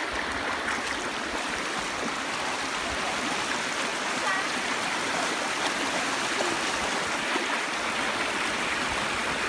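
Shallow river running over a rocky bed: a steady, even rush of flowing water.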